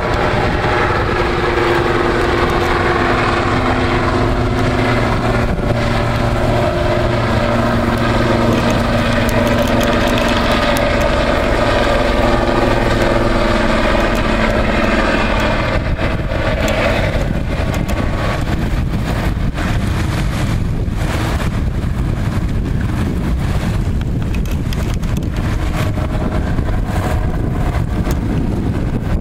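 A steady engine drone that dies away about halfway through, leaving wind buffeting the microphone.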